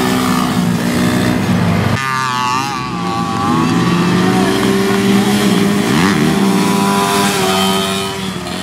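Small youth ATV engines revving as the quads race past, the engine note rising and falling with the throttle. The sound changes abruptly about two seconds in.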